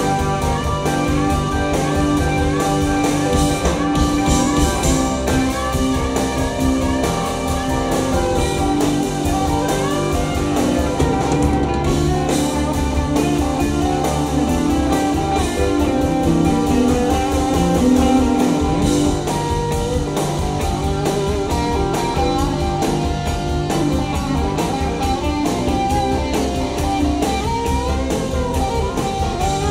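Live rock band playing an instrumental passage: electric guitars with bent notes over bass and drum kit.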